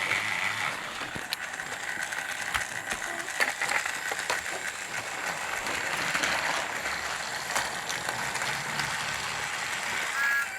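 Battery-powered toy trains running on plastic track: a steady small-motor whir and gear rattle with scattered clicks from the wheels and track.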